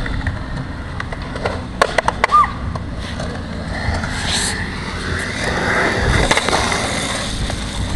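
Skateboard wheels rolling on concrete, with a few sharp clacks of board tails and trucks about two seconds in. A board rolls past closer and louder about six seconds in.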